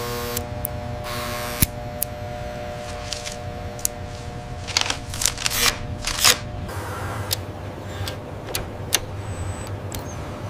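Machinery sound effects: a low steady hum with a held whine for the first couple of seconds, then scattered sharp mechanical clicks and a few short hissy bursts around the middle, the loudest about six seconds in.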